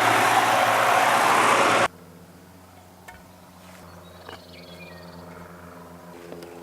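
Tractor engine running loudly, cut off abruptly about two seconds in. A quiet, steady low hum follows, with a few faint chirps.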